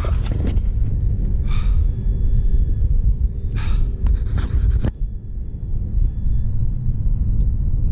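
Wind buffeting the camera's microphone as a steady low rumble, with three or four short, breathy gasps from the kayak angler as he holds a large sheephead.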